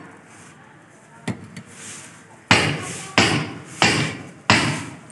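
Hammer and chisel blows chipping masonry around a rusted iron window frame to free it from the wall: a faint tap about a second in, then four sharp strikes about two-thirds of a second apart, each ringing off briefly.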